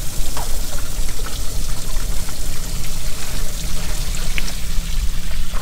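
Water sloshing and trickling against a small boat's hull on a choppy bay, with wind rumbling on the microphone.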